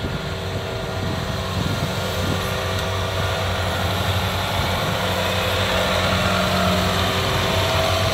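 Kubota combine harvester's diesel engine running steadily, growing gradually louder as the machine approaches.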